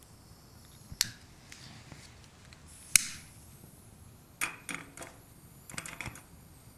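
Sharp clicks and strikes of a hand-held lighter igniting small titanium alcohol burners. Two single strikes come about two seconds apart, then two quick clusters of clicks near the end.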